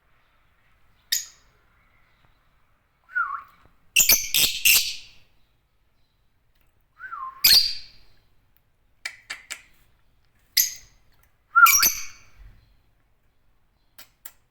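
Agapornis lovebirds giving short chirps and squawks in scattered bursts with pauses between them, a few opening with a brief whistle that slides down in pitch.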